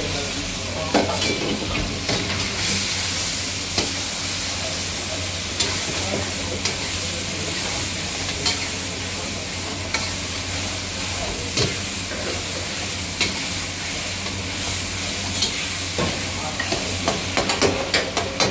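Chicken, tomatoes and green chillies sizzling in a hot karahi while a metal spatula stirs them, scraping and knocking against the pan. The knocks come faster near the end.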